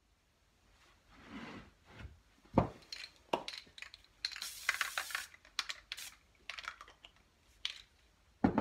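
Supplies being handled and set down on a wooden workbench: scattered knocks and clatters, a brief rustling hiss about halfway, and a sharp knock near the end as an aerosol can is put down on the bench.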